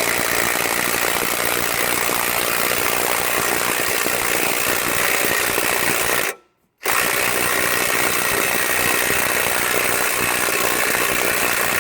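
Ryobi cordless impact driver hammering continuously as it turns a scissor jack's winding screw under load. The rapid impacts and motor whine stop abruptly about halfway through, then start again and run on.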